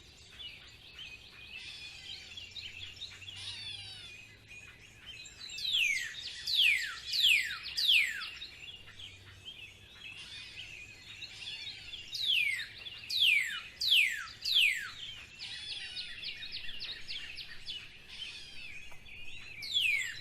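Spring birdsong: runs of four or five sharp, steeply falling whistles repeat every few seconds over continuous high twittering.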